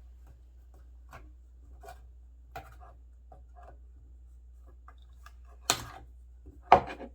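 Hand cutters snipping parts free inside a vintage office intercom: soft scattered clicks of handling small pieces, then two sharp snaps about a second apart near the end, the second the loudest.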